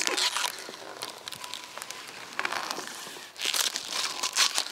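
Thin plastic protective film being peeled off a stainless steel reflector panel, crinkling with many small crackles. It comes off easily, louder at the start and again from about three and a half seconds in.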